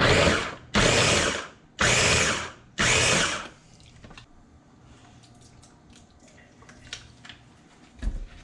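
Electric food processor run in four short pulses of about a second each, chopping smoked fish, then stopped, leaving only a few faint clicks and taps.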